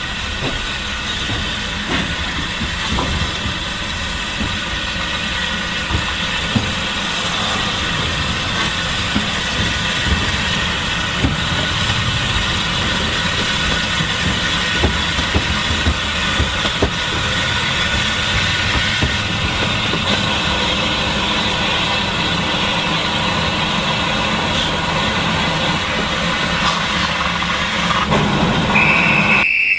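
Class 24 diesel's Sulzer six-cylinder engine idling steadily close by, with a brief high whistle near the end.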